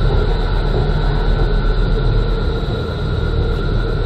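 Bombardier Flexity E2 tram creeping along the track under its own power: a steady low rumble with a constant high hum from its equipment running over it.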